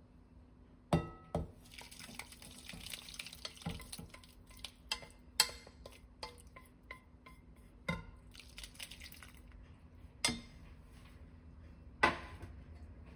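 Soup being poured from a glass pot into a ceramic bowl, with a run of sharp dish clinks; the first, about a second in, rings briefly.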